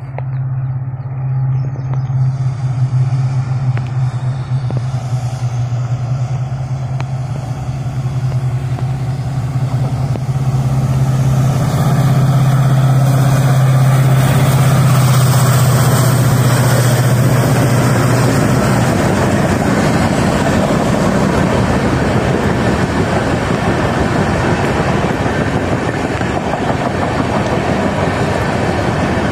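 Indian Railways WDP4D diesel locomotive's 16-cylinder two-stroke EMD engine working hard as the train accelerates past, a steady low drone that grows louder as it nears. About two-thirds of the way through, the engine note fades and the rushing noise of the passenger coaches rolling by on the rails takes over.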